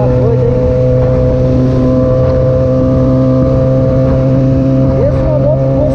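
Yamaha XJ6's inline-four engine running steadily at a constant cruising speed, heard from the rider's seat with wind rushing over the microphone.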